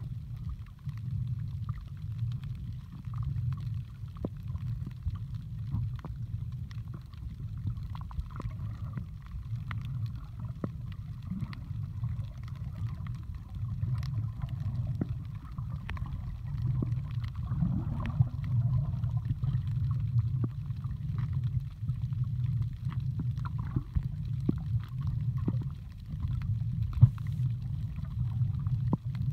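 Water moving around an underwater camera: a steady, muffled low rumble with scattered faint clicks.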